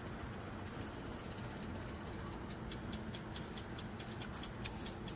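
Impact lawn sprinkler ticking evenly, about four ticks a second, starting about halfway through, over a low steady hum.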